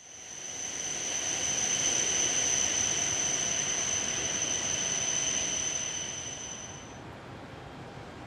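Shinkansen train running along an elevated track: a steady rushing noise with a thin, steady high-pitched whine over it, building at first and fading away after about six seconds.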